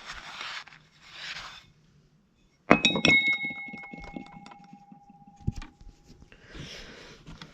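The steel dome of a Wheelock TB-593 Telbell knocked once about three seconds in, ringing on with a few clear tones that fade over several seconds, with small metallic clicks after it. Short rubbing sounds come before the knock and near the end, from the dusty bell being wiped with a cloth.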